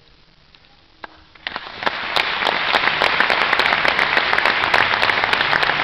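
Audience applause after a short hush: it breaks out about a second and a half in and quickly builds to steady, dense clapping.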